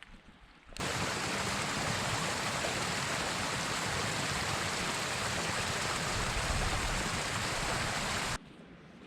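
Stream water rushing in a steady, loud, even noise that cuts in abruptly about a second in and cuts out just before the end.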